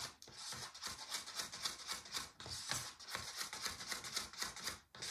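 A stirring stick scraping round the inside of a paper cup in quick repeated strokes, several a second, mixing white acrylic pouring paint with Owatrol and water; it stops suddenly near the end.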